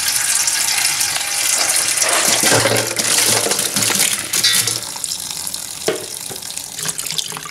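Tap water splashing steadily from a pipe into an enamel basin. About four seconds in, a tubful of raw shrimp is tipped into the basin, and there is a single sharp knock near the end.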